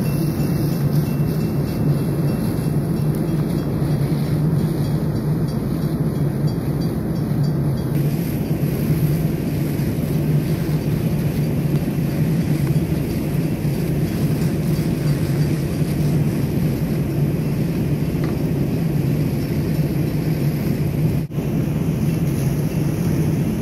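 Fire engine's pump engine running at a constant speed: a steady, loud low drone that does not change.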